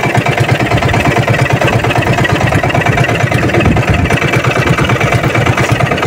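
Engine of a motorized outrigger boat running steadily under way, with a fast, even pulse.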